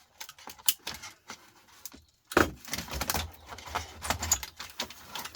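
Clicks, snaps and plastic clatter as a Bosch dishwasher door control board is pried and pulled out of its plastic housing. The clicks are scattered at first, then come thick and fast from a little over two seconds in.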